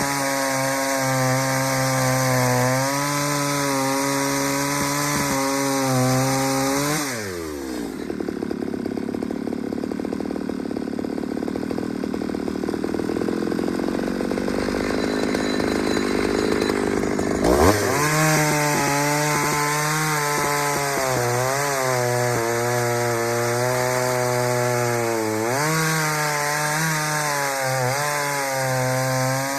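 Ported Pioneer two-stroke chainsaw cutting wood at high revs, the engine note wavering under load. About seven seconds in it drops to a low idle, and about ten seconds later it revs back up sharply and cuts again.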